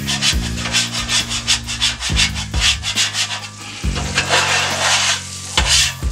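A handheld scraper scraping grease and burnt food residue across a steel flat-top griddle plate. It works in quick back-and-forth strokes, about three a second, then makes one longer scrape near the end.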